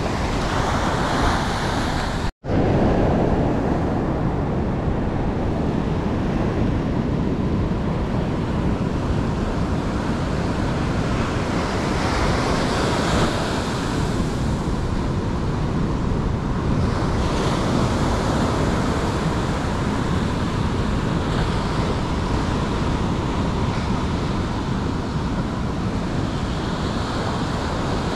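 Heavy surf breaking and washing up a sandy beach, a steady roar of wave noise. The sound cuts out completely for a split second about two seconds in.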